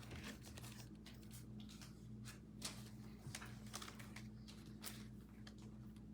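Faint light clicks and rustles of trading cards being handled, over a steady low electrical hum.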